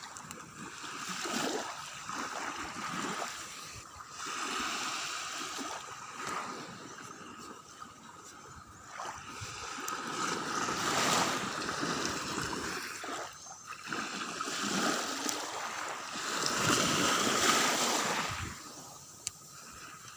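Sea water washing and splashing, swelling and fading every few seconds as waves come in.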